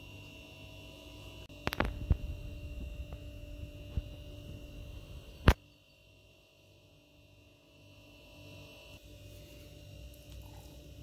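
Steady electrical hum with a low rumble, broken by a few sharp knocks in the first half, the loudest a single click about five and a half seconds in.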